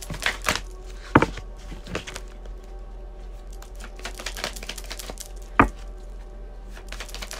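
A tarot deck being shuffled by hand: cards slapping and clicking against each other in quick irregular strokes, with the sharpest slaps about a second in and again past the middle.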